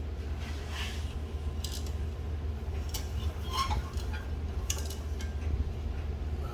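Light metallic clinks and rattles from the lifting chains and hardware as an engine hanging from a hoist is maneuvered down into the engine bay, over a steady low hum.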